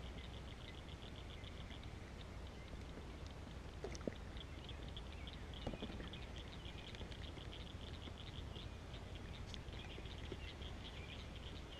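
Faint, fast series of high clicking calls, several a second, from frogs calling around the pond, with a couple of soft knocks from the kayak partway through.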